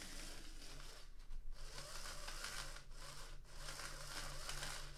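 Small electric motor of a Lima model tank locomotive's chassis running under power on test track, a steady buzzing whirr with a low hum beneath it, dipping briefly a few times; the mechanism runs fine.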